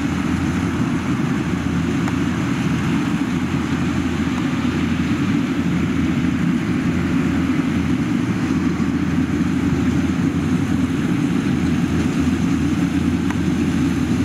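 Rice combine harvesters running steadily while cutting, a continuous engine and threshing drone with no change in pace.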